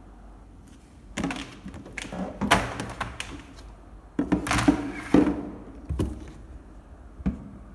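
IKEA SAMLA clear plastic storage box being handled and turned over: a run of knocks, clacks and scrapes of the plastic in two clusters, then single knocks about six seconds in and near the end.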